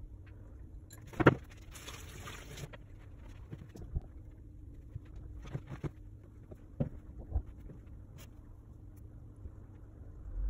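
Tabletop handling noises as a paintbrush and tools are moved about and set down on a plastic-covered table: a sharp knock about a second in, a brief rustle just after, then a few lighter taps, over a low steady hum.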